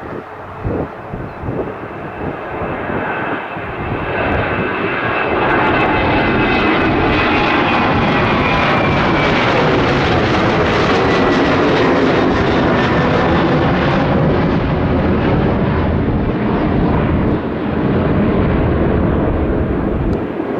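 Boeing 737-900 jet climbing out on takeoff power. Its engine noise builds over the first few seconds, then stays loud, with whining tones that fall slowly in pitch as it passes. Wind buffets the microphone at the start.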